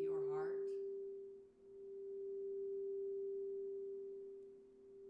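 Crystal singing bowl ringing with a steady pure tone over a fainter lower one, its loudness slowly swelling and fading twice.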